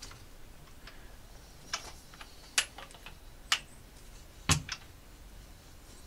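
Sharp metallic clicks, about one a second, from a spanner on the end of a BMW K1600's crankshaft as it is turned round by hand with the cam cover off. The loudest click comes about four and a half seconds in, with a dull knock under it.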